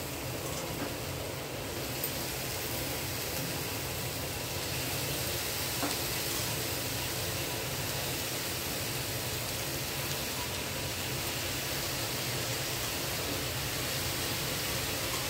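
Steady frying hiss from a kadhai on a gas stove as chopped spring-onion greens are added to the hot pan, with a couple of faint light clicks.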